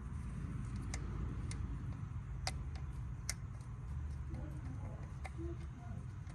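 Metal parts and hand tools clicking while a truck starter is fitted: four sharp, separate clicks in the first half, over a steady low hum.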